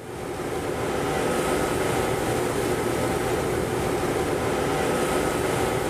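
Steady noise of a patrol boat running at sea: engine and rushing water, fading in over the first second and then holding level, with a faint thin steady whine.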